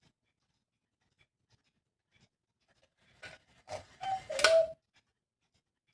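Vintage German cuckoo clock going off: mechanism clicks, then the bellows pipes give a breathy two-note call, a higher note followed by a lower one.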